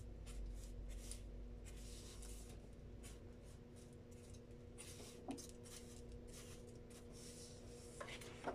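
Black permanent marker scratching quick short strokes on paper, a faint run of swipes about two or three a second.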